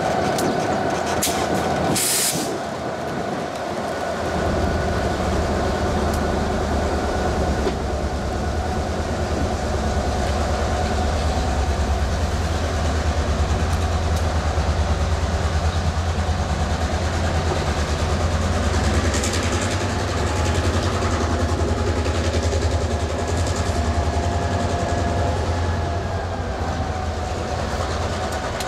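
South Shore Freight diesel locomotives running with a steady deep engine rumble as the train moves along the track, with a short hiss about two seconds in.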